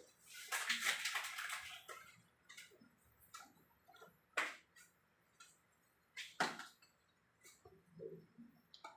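Kitchen handling sounds as pesto sauce is prepared: a short stretch of rustling and scraping about half a second in, then scattered sharp clicks and knocks of utensils and containers.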